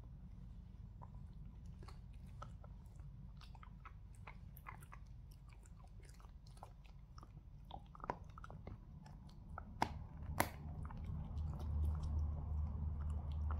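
A small dog gnawing on a hard bone-shaped chew treat: scattered clicks and crunches of teeth on the chew, with two sharper cracks a little past halfway. A low rumble swells over the last few seconds.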